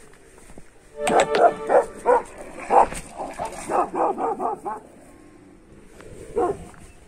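Village dogs barking in a quick run of barks and yelps from about a second in until nearly halfway through. One more bark comes near the end.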